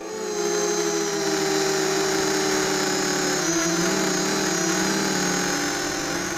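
Mini FPV quadcopter's 3100 kV brushless motors and 5x3 propellers buzzing steadily, picked up by the onboard keychain camera's microphone. The sound starts suddenly, and its pitch wavers about halfway through as the throttle changes.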